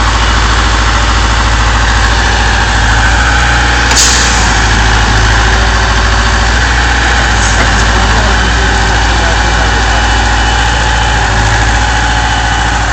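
Hydraulic excavator's diesel engine running steadily close by. A single sharp knock sounds about four seconds in.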